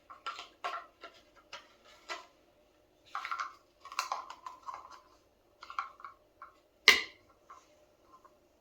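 Plastic parts of a cordless vacuum cleaner being handled, with a run of light clicks and rattles as the attachments are fitted and moved, and one sharp snap about seven seconds in.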